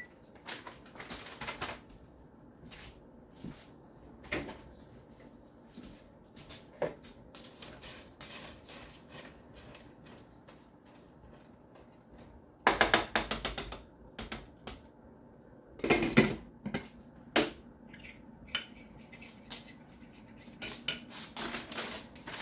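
Kitchen utensils clattering against pots and pans: scattered clinks and knocks, with two louder spells of clatter about thirteen and sixteen seconds in.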